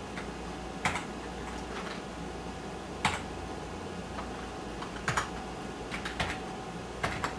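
Computer keyboard keys pressed one at a time, a click every second or two, coming quicker near the end, over a steady background hum.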